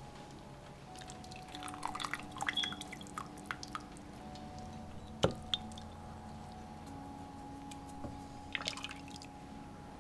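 Soup broth dripping and splashing off a wooden spoon as it is ladled from a pot into a ceramic bowl, in two short spells of drips. A single sharp knock of the wooden spoon comes about halfway through.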